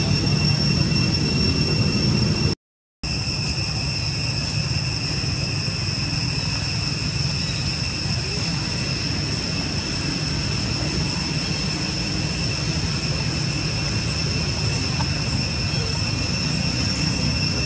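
Steady background noise: a constant high whine at two pitches over a low rumble, dropping out completely for a split second about two and a half seconds in.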